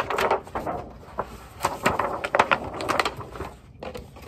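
Large stiff pages of an oversized picture book rustling and flapping as they are turned over on a chart easel, in two bouts of handling with sharp crinkles and knocks.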